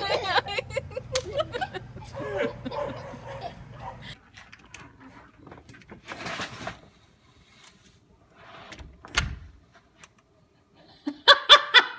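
A person slipping and falling on an icy step: a brief scuffing slide, then a single dull thud about nine seconds in. Voices come before it and start up again near the end.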